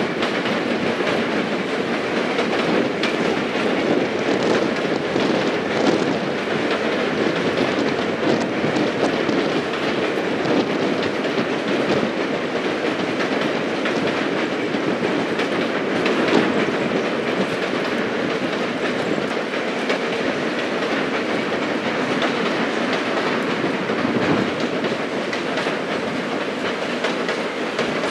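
Passenger cars of a long train rolling steadily across a steel trestle bridge: a continuous rumble of steel wheels on the rails with scattered clicks.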